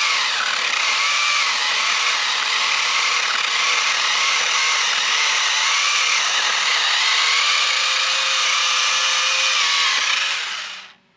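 Ryobi 40-volt cordless 10-inch pole saw's electric chain cutting through a small stump of wood, running steadily with its pitch wavering as the chain bites under load. It stops near the end.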